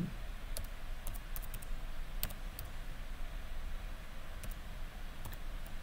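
Typing on a computer keyboard: scattered single keystrokes at an uneven pace, over a faint steady low hum.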